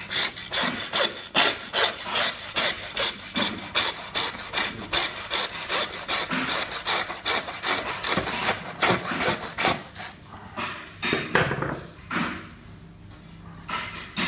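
Hand bone saw cutting through rib bones, rapid even back-and-forth strokes about three a second with a thin high ring from the blade. The sawing stops about ten seconds in, followed by a few scrapes and knocks.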